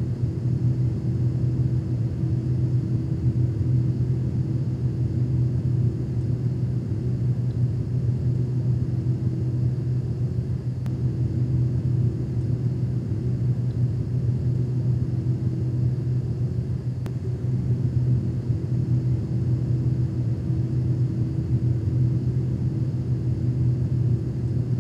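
A steady low rumbling drone that holds at an even level without change.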